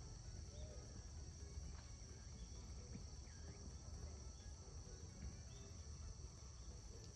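Faint steady insect chorus, a continuous high-pitched drone, with a few short faint chirps scattered through it.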